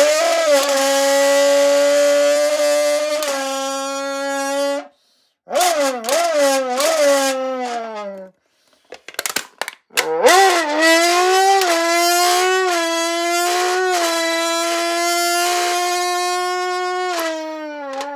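F1 car engine imitated by a person buzzing into a Monster energy drink can: a loud, reedy buzzing tone that holds its pitch, dips and climbs again several times like gear changes. It breaks off briefly twice, with a few clicks in the second gap, and drops in pitch near the end.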